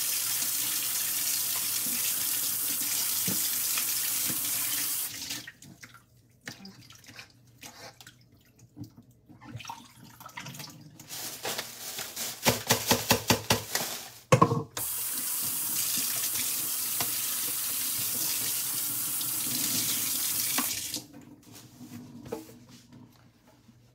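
Kitchen sink tap running in a steady stream, shut off about five seconds in. A few knocks and a quick run of sharp rustles follow. Then the tap runs again for about six seconds and is shut off.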